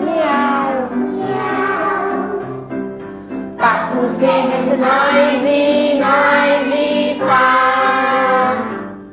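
Voices singing a children's farm song over backing music with a steady jingling beat; it fades out near the end.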